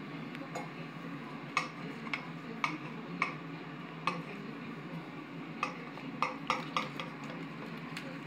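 Metal knife and fork cutting through a crispy deep dish pizza crust in a foil pan: irregular sharp clicks and scrapes of the cutlery against the pan, over a low steady hum.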